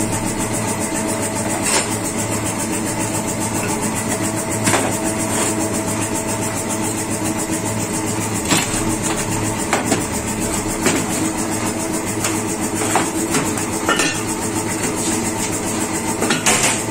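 A steady hum of running machinery, with occasional sharp metallic clicks and clinks as a screwdriver works the housing of a truck spring brake chamber on a metal bench.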